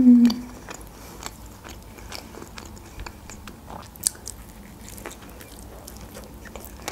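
A closed-mouth 'mmm' hum of enjoyment tails off at the start, then quiet mouth sounds of someone chewing a chicken shawarma wrap, with small wet clicks. The wrap is bitten into again about four seconds in.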